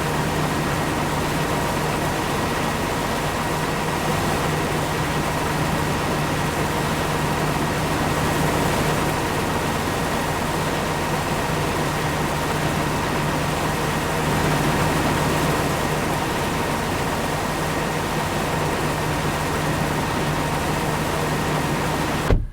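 Corn-harvesting farm machinery running steadily: a constant engine drone with a thin, steady whine above it. It ends with a short knock and cuts off suddenly right at the end.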